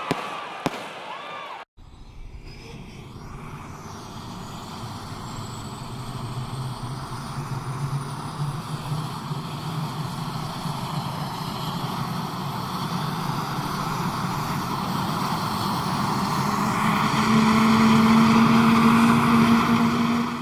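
Fireworks crackle for the first second or two, then the sound cuts to a steady engine noise that grows steadily louder, with a hum rising slightly in pitch near the end.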